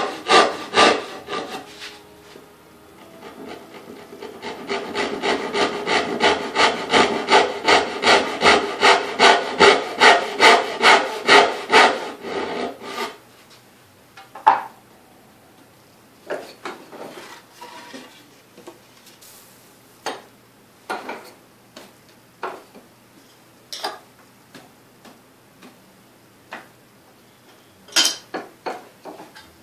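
Hand saw cutting dovetail pins in an upright wooden board, even back-and-forth strokes about three a second, growing louder as the cut deepens, then stopping about halfway through. After that, scattered knocks and clatter of wood being handled.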